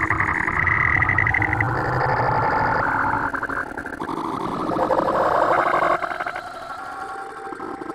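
Heavily effects-processed, distorted audio: a droning, warbling layered sound whose pitch shifts abruptly every second or so, dropping in level about six seconds in.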